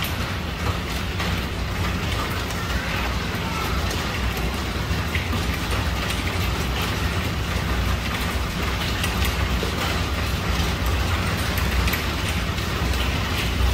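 Hail and heavy rain pelting a tiled roof: a steady, dense hiss of rain with many sharp ticks of hailstones striking the tiles.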